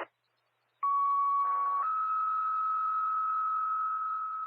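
Two-tone sequential fire paging tones over a radio scanner: a short radio key-up click, then a steady lower tone for about a second, stepping up to a slightly higher tone held for about three seconds. The tones alert firefighters' pagers for a call-out.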